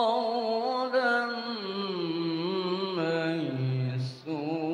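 A man reciting the Quran in the ornamented, sung tilawah style through a microphone: long held notes that waver and glide in pitch, with a brief break about four seconds in before the next phrase.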